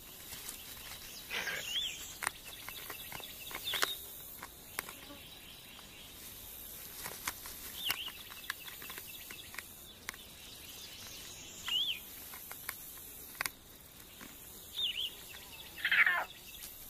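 Outdoor natural ambience: short, wavering bird chirps every few seconds over a faint steady background, with scattered faint ticks. A louder, longer call comes near the end.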